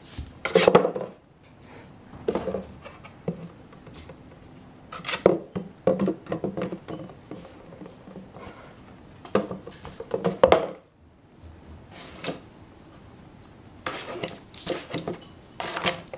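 A small dog batting a cardboard milk carton with its paw on a wooden floor: irregular thumps and knocks, coming in short clusters every second or two.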